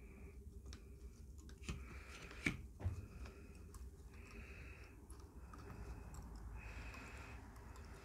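Faint clicks and taps of an M18 battery's circuit board and plastic housing being handled while it is desoldered, the sharpest click about two and a half seconds in, over a faint hiss that comes and goes.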